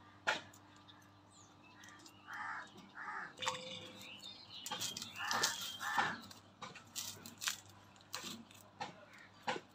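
Small sharp clicks and crackles of hands snapping the stems off green chillies and peeling a red onion against a boti blade. A bird chirps twice in pairs of short notes in the background, a couple of seconds in and again around the middle.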